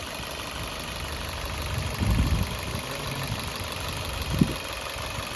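Maruti Swift Dzire's 1.2-litre four-cylinder petrol engine idling, with an extra abnormal noise on top of the engine sound: a louder patch about two seconds in and a short sharp knock near the end. The noise comes from a coconut shell dragged in by a rat and lodged against the water pump belt drive.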